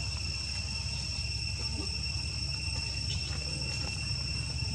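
Steady insect chorus, crickets or similar, holding a continuous high trill without a break, over a low background rumble.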